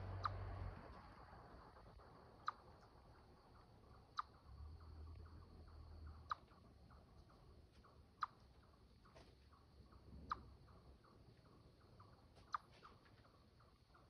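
Eastern chipmunk giving its repeated territorial chip call: seven short, sharp chips, about one every two seconds.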